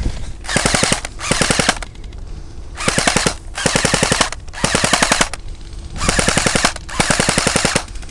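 Airsoft electric rifle firing in full-auto, seven short bursts of rapid shots with brief pauses between them.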